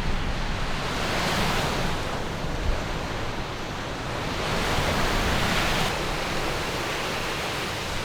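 Lake Superior waves washing onto the shore in a blizzard, with steady wind. Two waves swell up and fall away, one about a second in and one about halfway through.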